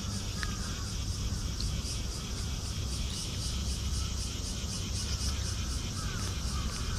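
Insects chirping in an even, fast pulse of about five a second, over a steady low rumble.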